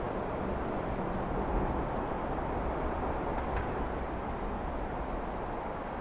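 Steady rushing of shallow stream water running over stones, with a low rumble underneath.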